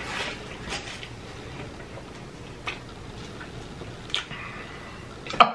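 A person chewing a large mouthful of food close to the microphone, with scattered wet mouth clicks and smacks and one louder smack near the end.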